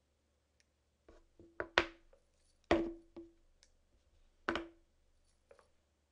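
A handful of irregular knocks on something hard, starting about a second in. Three are louder than the rest, and some leave a short ringing note.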